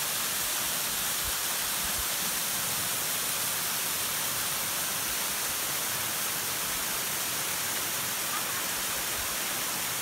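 Waterfall and the stream below it splashing over rocks: a steady rushing hiss of falling water.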